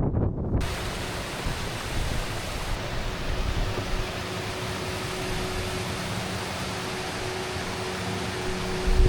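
A steady rushing hiss, spread evenly from low to high, that starts suddenly just after the beginning and holds without a break.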